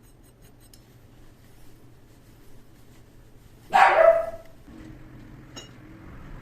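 A dog barks once, loud and short, about halfway through, over a steady low hum; a faint click follows a little later.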